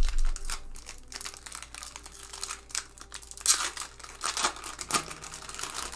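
Foil wrapper of a Topps 2019 Series 1 baseball card pack crinkling and tearing as it is ripped open by hand: a run of crackles with louder rips about three and a half and four and a half seconds in. A low thump comes right at the start.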